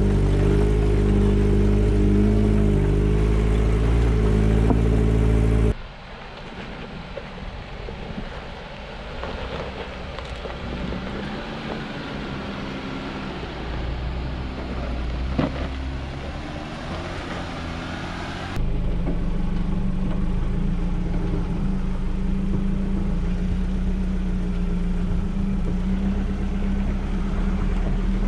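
Off-road 4x4 engines running at crawling speed on a rocky dirt trail, a steady low drone with the throttle rising and falling. It is loud at the start and the end and quieter for a long stretch in the middle, with abrupt changes where the sound cuts.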